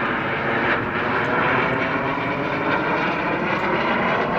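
Aircraft engine noise of a display plane flying past, a loud rushing sound that swells at the start and then holds.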